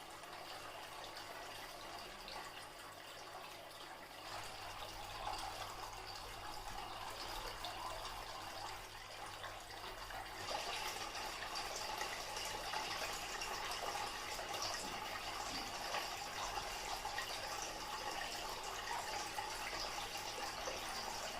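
Homemade tabletop waterfall fountain running: water trickling and splashing steadily, a little louder about four seconds in and again about ten seconds in, over a faint low hum.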